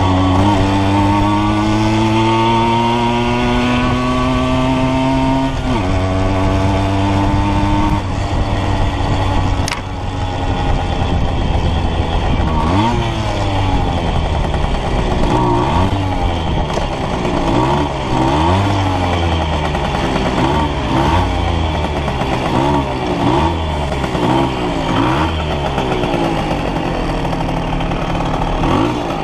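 Simson S50 B2 moped's 50 cc two-stroke single-cylinder engine running under way. The revs climb steadily, drop at a gear change about six seconds in, then fall away off the throttle. Through the second half the revs rise and fall again and again in short swells.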